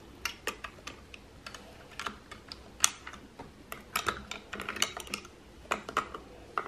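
Plastic Lego bricks and minifigures clicking and clattering as they are handled and moved about: a string of irregular sharp clicks, the loudest a little before three seconds in.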